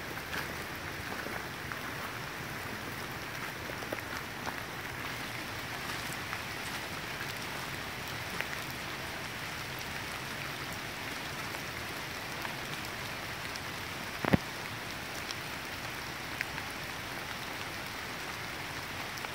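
Steady, even hiss of the tropical forest surroundings, with a few faint ticks and one sharp knock about fourteen seconds in.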